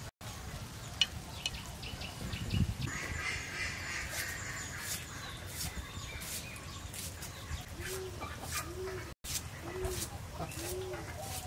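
Birds calling outdoors: scattered high chirps with light clicks, then from about eight seconds in a short low call repeated roughly every two-thirds of a second, like a hen clucking.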